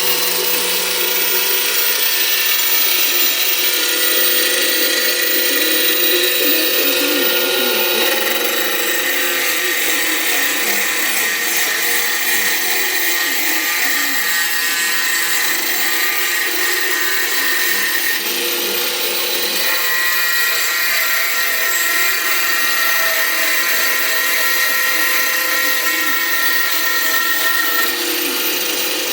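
Power tool running continuously, a steady whine over a rushing noise, its pitch shifting a couple of times.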